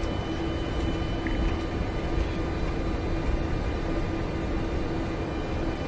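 Steady flight-deck noise of a large airliner rolling on the ground after landing: a constant low rumble with a steady hum running through it.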